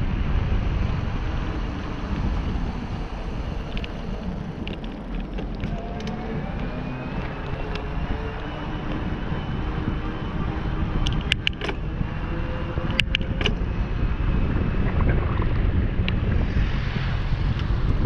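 Wind buffeting the microphone and the rush of a mountain bike's knobby tyres on asphalt as it descends a road. A short cluster of sharp clicks comes a little past halfway.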